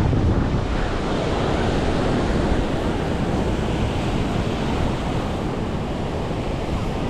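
Ocean surf washing onto a sandy beach, with wind rumbling on the microphone.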